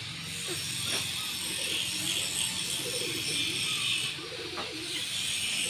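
Continuous crackling, rustling noise with low, wavering bird coos repeating underneath.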